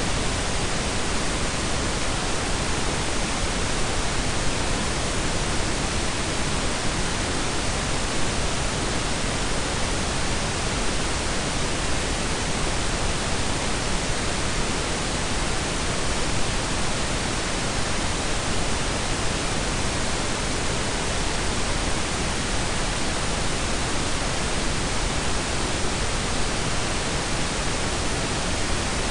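Synthetic pink and brown noise blended together: a steady, even hiss with no changes.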